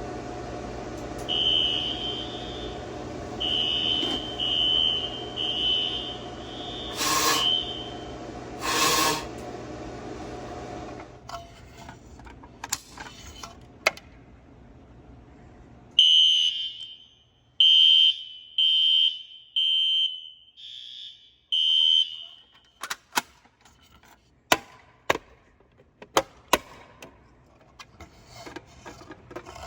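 Fire alarm sounder on a Fire-Lite ES-200X system sounding during a system test. It gives short, high-pitched beeps in groups, falls silent for a few seconds, then sounds again. Two sharp knocks come about seven and nine seconds in, and a run of clicks and taps near the end.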